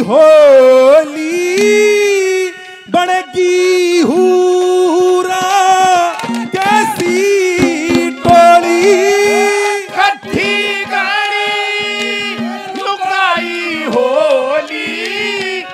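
Live Haryanvi ragni folk music: a sliding, ornamented melody line over hand-drum accompaniment on dholak.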